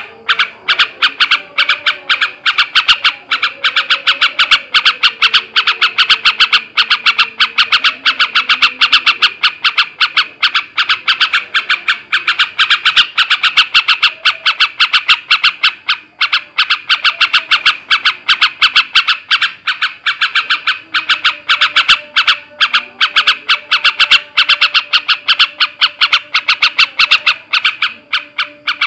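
Male yellow-vented bulbul (trucukan) giving an unbroken, rapid chattering call of sharp repeated notes, several a second: the excited 'ngekek' chatter of a bird in breeding condition.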